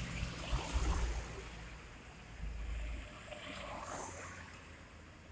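Loaded diesel truck passing close by, its engine and tyre rumble fading as it moves away, with further traffic noise swelling again from about two and a half seconds in. A short high hiss sounds about four seconds in.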